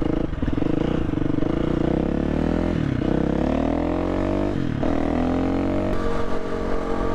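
Single-cylinder four-stroke engine of a KTM 350 EXC dirt bike accelerating under way. Its pitch climbs, drops sharply at two upshifts about three and four and a half seconds in, then holds steady at cruising speed.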